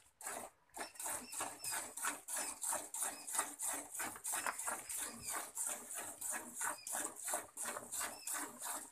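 Hand-milking a cow into a steel bucket: jets of milk squirting into the pail in a steady rhythm, about three or four squirts a second, starting about a second in after a short pause.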